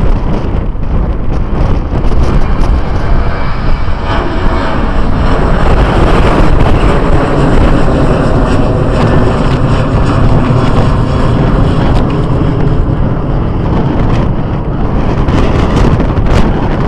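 Twin CFM56 jet engines of a Boeing 737 at climb thrust just after takeoff, a loud steady jet noise as the airliner climbs out and away.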